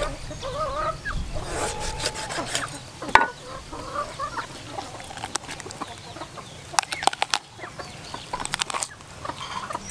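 Chickens clucking in short calls, with the sharp knocks of a cleaver chopping a raw chicken on a wooden chopping board: one loud knock about three seconds in and a quick cluster of knocks a few seconds later.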